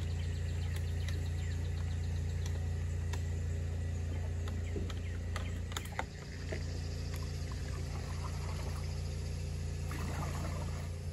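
Light water sloshing and splashing as the wooden poling skiff is slid into the creek and poled along, over a steady low hum.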